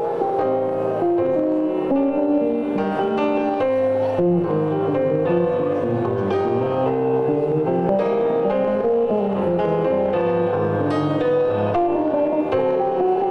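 Electric bass solo in a jazz set, played fingerstyle high on the neck as a run of melodic notes and chords.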